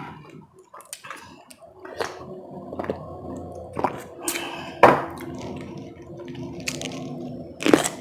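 Close-miked wet chewing and mouth sounds from eating, broken by several sharp clicks, the loudest about five seconds in. Near the end comes a crisp bite into a whole cucumber.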